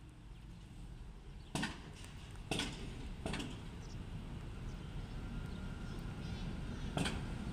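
Historic Swiss electric locomotive rolling slowly closer, its wheels giving a few sharp clacks over the track joints above a low running rumble that grows louder.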